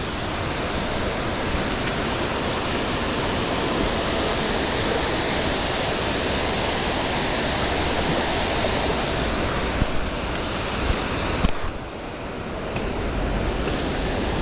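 Waterfall on a creek, a steady loud rush of falling water. A few short knocks come just before it briefly goes muffled about twelve seconds in, then it returns.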